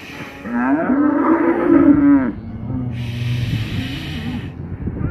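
A cow mooing once, one long call of about two seconds, followed about three seconds in by a breathy hiss lasting a second or so.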